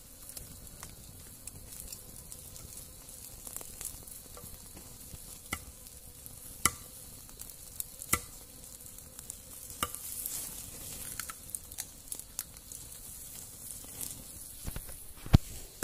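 Wood campfire crackling: a soft steady hiss with scattered sharp pops, one loud pop near the end.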